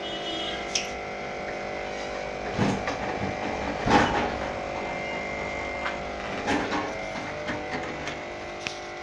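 Steady mechanical hum made of several fixed tones, with a few knocks and rustles about two and a half, four and six and a half seconds in.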